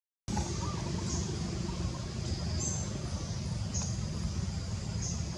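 Forest ambience: a steady low rumble with a few short, high bird chirps about a second apart.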